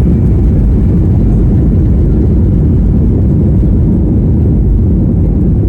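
Airliner's jet engines during take-off: a loud, steady low rumble that holds even throughout.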